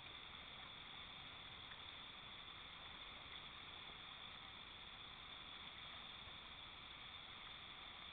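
Near silence: a faint, steady rush of whitewater rapids under a constant high hiss.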